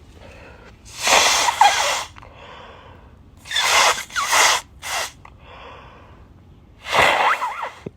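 A person blowing their nose hard: three long, forceful blows, with a short extra puff after the second.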